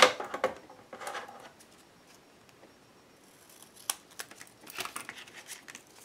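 Scissors cutting a strip of foil duct tape, with the foil crinkling: short snips and rustles in the first second or so, a quiet pause, then more snips and rustling from about four seconds in.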